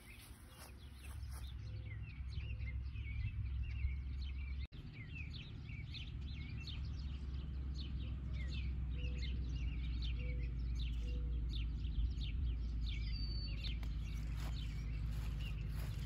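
Many small birds chirping outdoors, a dense run of short, quick, falling chirps that goes on throughout. A steady low rumble lies underneath.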